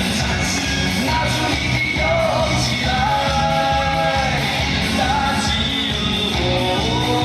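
Loud rock-pop song with a steady beat and a sung vocal line holding long notes.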